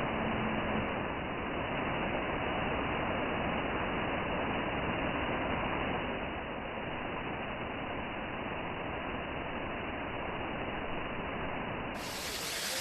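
Waterfall water rushing steadily, a constant, even roar. The sound becomes brighter shortly before the end.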